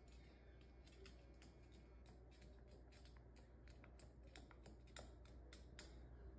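Faint quick clicking of a white cockatoo's feet, shod in small black shoes, tapping on a hardwood floor as it walks, about three to four taps a second, stopping shortly before the end.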